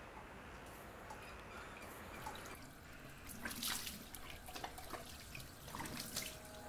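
Water splashing and dripping into a sink as a face is washed by hand: a faint run of irregular small splashes and drips, starting about two and a half seconds in.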